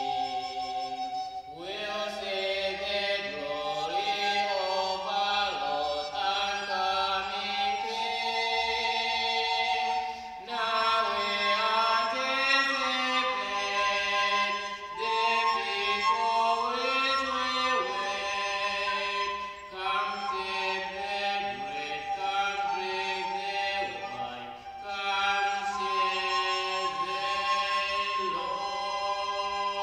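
Two recorders playing a hymn melody together while a man's voice sings along.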